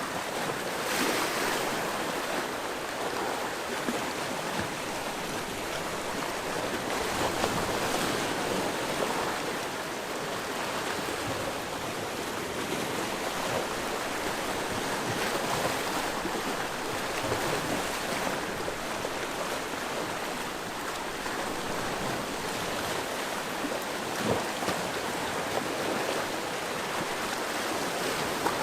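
Sea waves washing on the shore: a steady rush of surf that swells and eases, with a few brief louder splashes.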